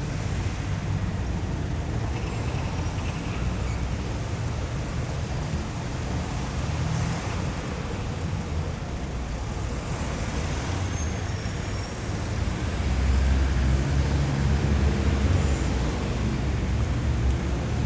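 Busy city street traffic: a steady rumble of engines and tyres from passing vehicles. About two-thirds of the way through a deeper engine rumble swells louder for a few seconds.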